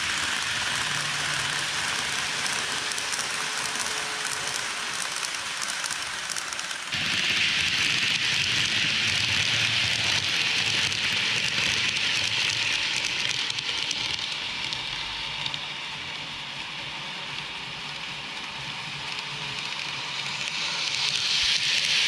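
N gauge model electric train (KATO JR 223-2000 series) running on layout track: a steady rattling hiss of metal wheels on rails over a faint motor hum. It jumps louder and brighter about seven seconds in, dips later and swells again near the end as the cars pass close.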